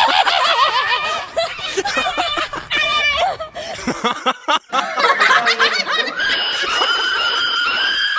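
People laughing and snickering, followed by a high, steady squeal held for about the last two seconds.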